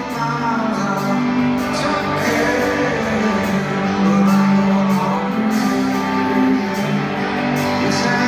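Live rock band playing a slow song, electric guitars and drums under a held sung vocal line, heard from the audience across a large arena.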